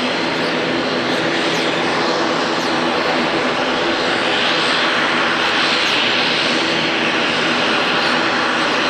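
Jet airliner's turbofan engines running, a loud steady noise with a faint hum underneath.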